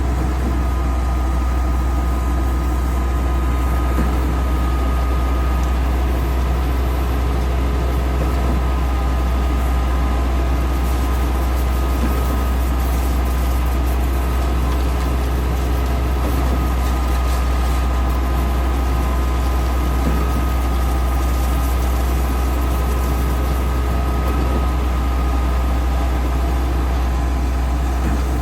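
Mobile concrete pump's engine running steadily at a constant speed: a loud, deep, even hum with several steady higher tones over it.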